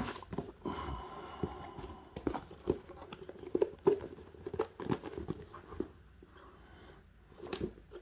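A small electric hot plate and its cardboard packaging being handled as the hot plate is lifted out of the box: a string of irregular light knocks and taps with some rustling, with a short lull near the end.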